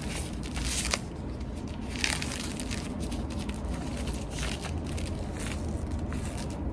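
A tight PVC glove being pulled onto a hand: the plastic crinkles and crackles irregularly, with sharper crackles about a second in and again about two seconds in.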